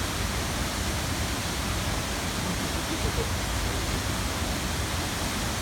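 Steady rushing noise of a waterfall, even and unbroken.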